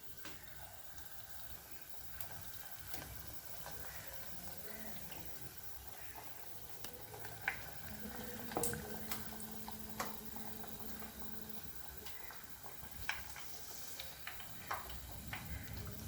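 Batter-coated breadfruit slices frying in hot oil in a pan: a steady soft sizzle with scattered sharp pops and crackles.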